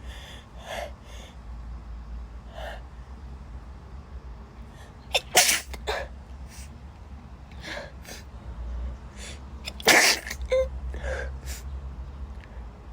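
A woman sneezing twice in a sneezing fit, loudly about five seconds in and again about ten seconds in, with short breaths and gasps between the sneezes.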